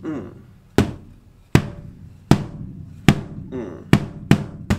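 Wooden taiko sticks (bachi) striking a tape-wrapped practice drum: four even hits about a second apart, then three quicker hits near the end.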